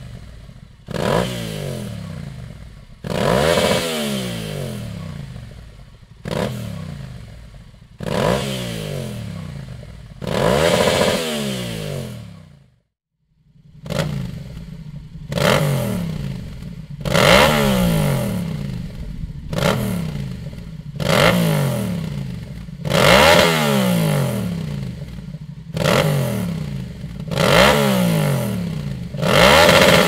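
Yamaha Tenere 700's 689 cc parallel-twin engine revved in short, sharp throttle blips at standstill through a Dominator HP1 aftermarket exhaust. Each blip rises quickly in pitch and falls back toward idle. After a brief gap about halfway through, the blips carry on through the louder Dominator GP1 silencer (rated 96 dB against the HP1's 93 dB), coming about every two seconds.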